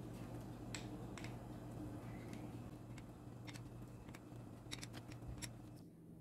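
Faint scattered clicks and light taps over a steady low hum, with a quick cluster of clicks a little before the end; the hum changes and the background drops away just before the end.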